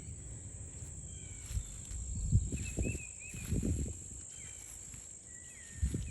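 Outdoor morning ambience: insects buzz steadily in a high, even drone, with a few short bird chirps around the middle and a brief whistle near the end. Several low rumbles on the microphone are the loudest sounds.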